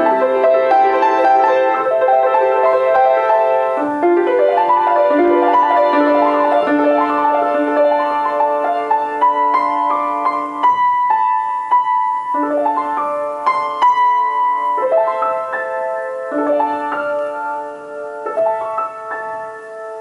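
Solo grand piano playing an improvised piece, slow sustained notes and chords ringing out. The playing thins and grows quieter toward the end as the piece winds down.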